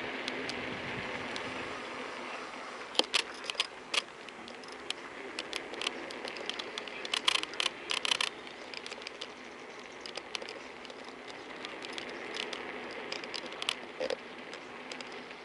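Phone holder on a moving Kugoo V1 Plus creaking and clicking: clusters of sharp clicks about three seconds in, again around seven to eight seconds, and near the end. Under them runs a steady rush of wind and tyre noise.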